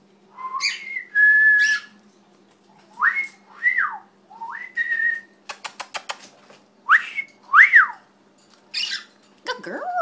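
A cockatiel whistling: a string of clean whistled notes, some rising, one held, several rising and falling in the shape of a wolf whistle. A quick run of clicks comes about halfway through.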